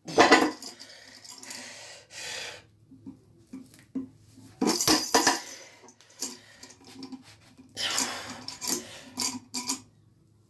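Steel chains and iron weight plates on a loading pin clinking and jangling as the stack is lifted and set down with a chain-hung grip handle, in several separate bursts. Heavy thuds come at the start and about five seconds in.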